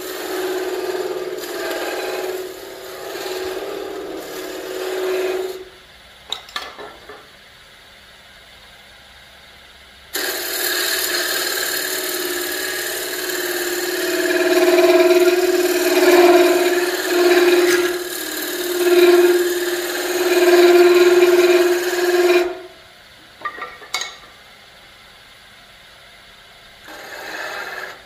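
Narrow flat lathe tool cutting bead details into a spinning Nargusta wood handle on a wood lathe: a steady scraping hiss with a humming tone. There are two cuts, a short one at the start and a longer one from about ten seconds in, with quieter gaps holding a few light clicks.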